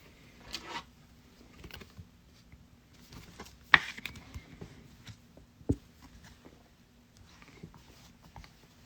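Trading cards being handled and slid through the hands: soft scattered rustles and ticks, with a sharp snap about four seconds in and a dull knock on the table near six seconds.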